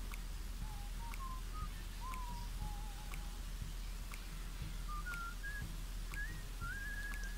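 Faint whistled tune: a string of short notes stepping and gliding up and down, with a couple of longer held notes near the end, over a low steady hum.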